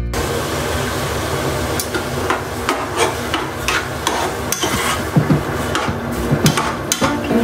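A spoon stirring corn kernels in milk in a saucepan on the stove, knocking and scraping against the pan again and again from about two seconds in, over a steady hiss from the hot pan.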